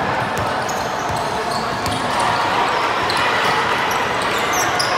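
A basketball bouncing on a gym floor during play, a string of short thumps, over steady crowd chatter in the gym.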